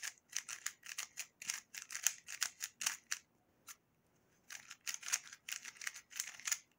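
YJ Zhilong Mini 3x3 magnetic speedcube being turned by hand in quick runs: rapid plastic clicks and clacks as the layers turn and snap into place, with a pause of about a second just past the middle. The cube is turning fresh out of the box, still slightly dry and not yet lubed.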